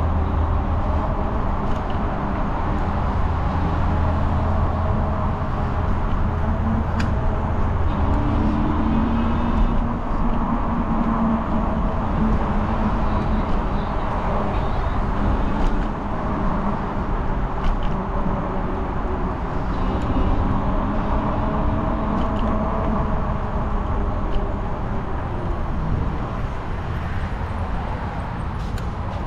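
Motor vehicle engine and road noise, a steady rumble with an engine tone that rises and falls now and then.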